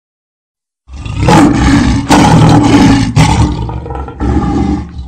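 Lion roaring: a long, loud roar begins about a second in, then a shorter roar follows near the end.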